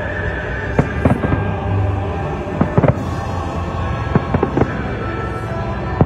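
Aerial fireworks bursting in an irregular series of sharp bangs, some in quick pairs, over music playing.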